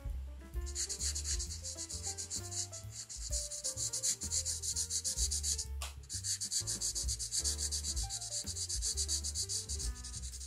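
Mingyun marker's felt tip rubbing back and forth on grid paper in quick short strokes, colouring in an area: a dry, scratchy hiss. It breaks off briefly a little past halfway, then resumes.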